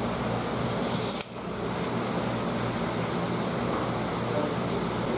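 Steady indoor background hum, like a fan or air-conditioning unit running, with a short hiss about a second in that cuts off suddenly.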